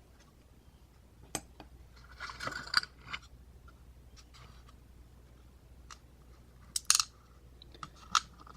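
Small metallic clicks and scrapes from handling the parts of a disassembled padlock: a click about a second in, a short scrape a little later, then a sharper click near the end, as the top pins are dropped out of the cylinder.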